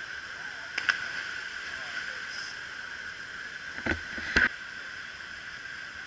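Steady rush of a small waterfall cascading over rocks into a pool, with a sharp splash about a second in as a jumper hits the water, and two more sharp knocks around four seconds in.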